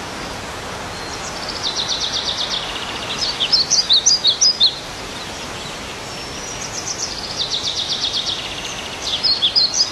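A songbird singing over a steady background hiss. Each phrase is a fast, even trill followed by a quick run of chirps, and the phrase comes twice.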